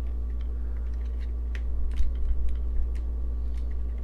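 Irregular small clicks and taps of plastic camera parts being handled while batteries are fitted into an instant-film camera back, over a steady low hum.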